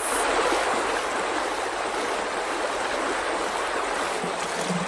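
Rushing floodwater: a wave surges over a ledge, then the water runs on in a steady rush.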